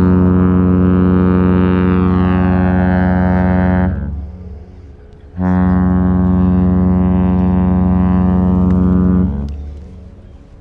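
Cruise ship's horn sounding a double: two long, deep blasts of about four seconds each, with a short pause between them.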